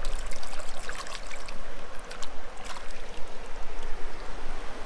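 Shallow creek running over rocks, with small splashes and sloshes as something is rinsed in the water by hand.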